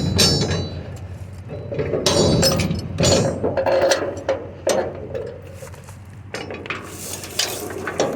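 Irregular clanks, knocks and clinks of scrap metal and debris being shifted and stepped on, with an occasional brief metallic ring.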